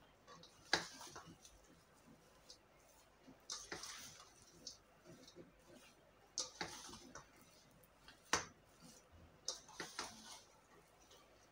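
A spoon scraping and clinking against a stainless steel bowl while mashing and stirring a potato filling, in short sharp strokes about every two to three seconds.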